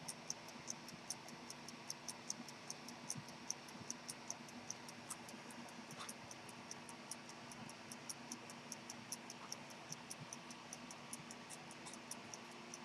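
Antique 18k gold jumping-seconds pocket watch ticking steadily, about five light, high-pitched ticks a second.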